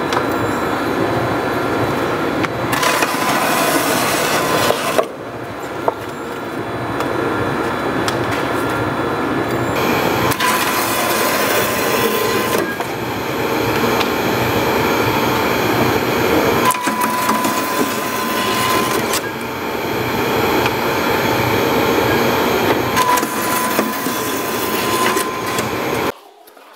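Scrap-tyre processing machine running and cutting through a tyre. A steady machine noise is broken by louder stretches of tearing and cutting noise lasting two to three seconds, about every six seconds, and the sound cuts off suddenly near the end.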